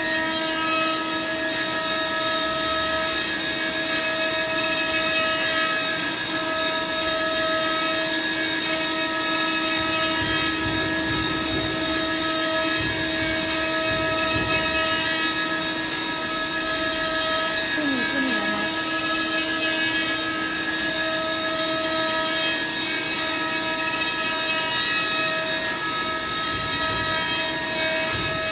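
Woodworking machine running steadily with a constant mechanical whine.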